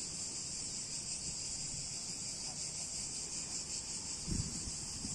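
Cicadas buzzing in a dense, steady, high chorus, the insect noise the uploader apologises for.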